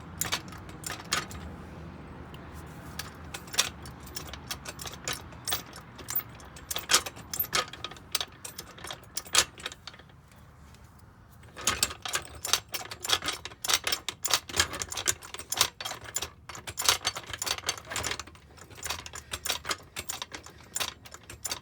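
Hydraulic floor jack being worked under the front lower control arm: rapid metallic clicking and clanking, easing off briefly about halfway through, then resuming as the arm is lifted.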